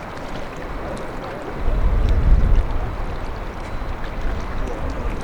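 Strong wind buffeting the microphone, gusting louder about two seconds in, over the distant drone of racing boats' outboard engines on the water.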